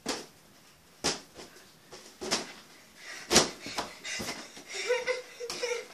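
Rubber balloons being kicked along a hallway: a string of sharp slaps and thumps, about one a second at first and then quicker, the loudest about halfway through. Near the end a short, held squeaky sound.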